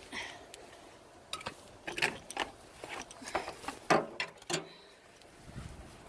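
Irregular clicks, knocks and rattles of objects being shifted about while rummaging through a dumpster's contents, loudest about four seconds in.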